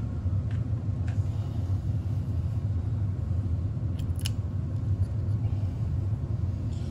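Steady low background rumble, with a few light clicks as a DC barrel power plug is handled and pushed into a small stepper-driver test board.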